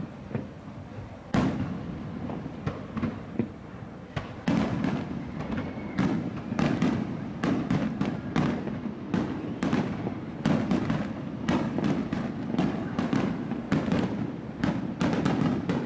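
Aerial fireworks shells bursting, with a few scattered bangs at first and then, from about four seconds in, a rapid, overlapping barrage of explosions with rumbling in between.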